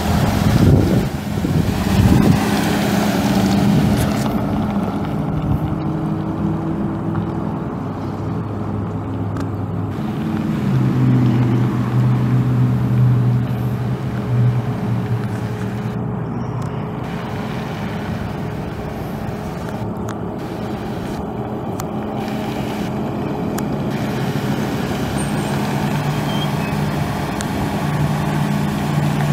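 Chevrolet Silverado 1500's 5.3-litre V8 running at idle, loudest and most uneven in the first couple of seconds and then steady, its note shifting slightly now and then.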